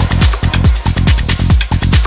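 Psychedelic trance track playing at full beat: a steady four-on-the-floor kick drum, a little over two kicks a second, with a rolling bassline filling the gaps between kicks and ticking hi-hats on top.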